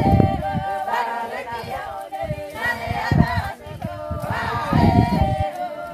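Several voices singing together in harmony without instruments, with a few low rumbling bursts, about one near the start, one around three seconds in and one near five seconds.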